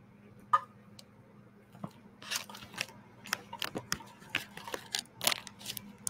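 Handling noise close to the microphone: a sharp click about half a second in, then from about two seconds in a run of crinkles, rustles and small clicks, like paper or objects being moved about.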